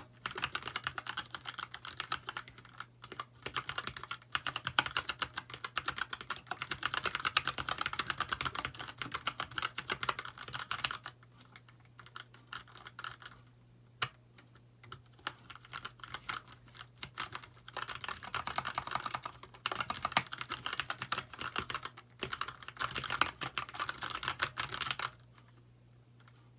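Typing on a Keychron K2 mechanical keyboard with brown switches in an aluminium frame: fast runs of keystrokes, a sparser stretch of a few separate presses in the middle, then another fast run that stops near the end.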